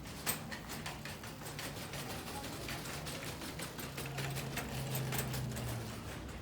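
Rapid, irregular clicking and ticking, several clicks a second, with a low hum in the middle of the stretch.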